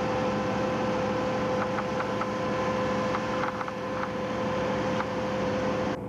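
A fishing boat's engine running steadily, a constant hum with a rushing noise over it and a few faint clicks in the middle; it cuts off suddenly near the end.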